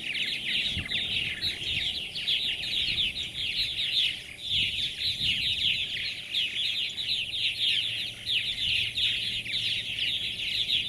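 A colony of purple martins calling all at once: a steady, dense chatter of many overlapping quick calls, easing briefly about four seconds in.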